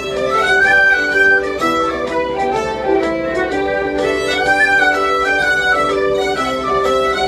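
A group of fiddles playing a tune together, with a melodic phrase that comes round again about four seconds later.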